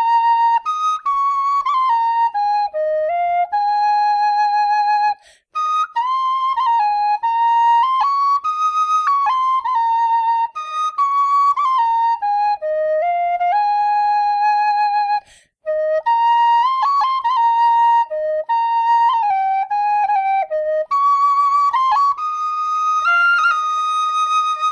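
Killarney tin whistle playing a tune, one clear high note after another in quick steps of pitch, with two brief breaks about five and fifteen seconds in.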